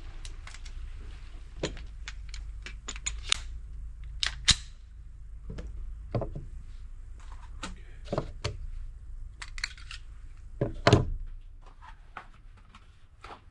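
Irregular light clicks and knocks of small hard objects being handled, with the loudest knocks about four and a half seconds and eleven seconds in. A low wind rumble on the microphone fades out near the end.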